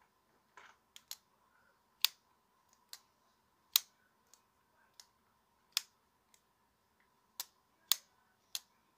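Spyderco Manix 2 folding knife with a titanium ball-bearing-lock cage being flicked open and shut again and again: a dozen or so sharp metallic clicks, some loud and some soft, about one every half second to second, as the blade snaps into place. The cage has been freshly burnished with a dry lubricant so the action runs free instead of galling.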